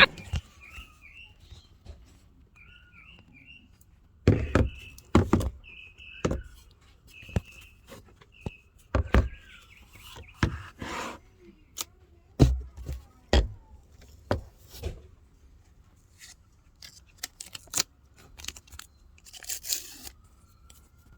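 Irregular knocks and clunks of handling, about a dozen over the stretch, with short bird chirps in the background, most of them in the first half.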